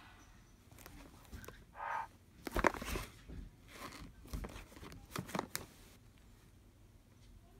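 Shrink-wrapped DVD box set being handled and turned over in the hands: the plastic wrap crinkles and the box clicks and taps in irregular bursts over the first six seconds or so.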